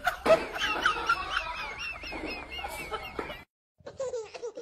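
A rapid run of short clucking chirps, about four or five a second, that cuts off abruptly; after a brief silence a burst of laughter begins near the end.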